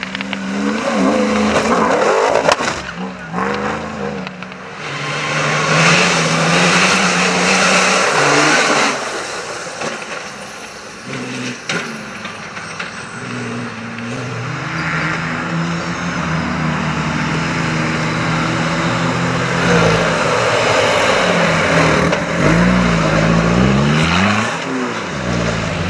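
Off-road rally cars driven flat out on a dirt stage, one after another. The engines rev hard, rising and falling in pitch through gear changes and lifts, while the tyres throw dirt and gravel.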